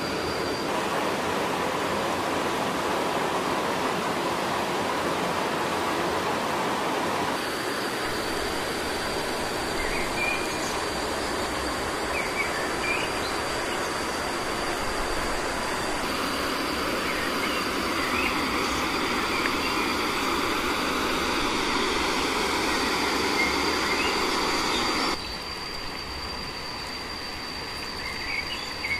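Steady rushing of water in a shallow rocky stream, with a thin, steady high insect whine and a few short bird chirps over it. About 25 seconds in the rushing drops off sharply, leaving a quieter background of insects and birds.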